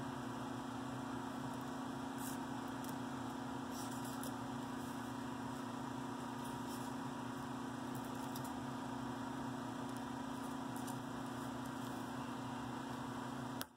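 Steady electric blower hum: a low drone with a fainter higher tone over an even airy hiss, with a few faint clicks. It cuts off suddenly at the very end.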